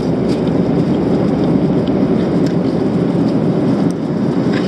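Steady airliner cabin noise in flight, the engines and rushing air heard as a dense low noise, with a few faint clicks.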